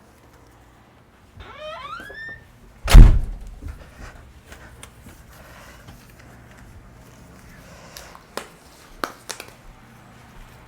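A door hinge creaks with a rising squeak, then the door shuts with a heavy thud; a few light clicks follow near the end.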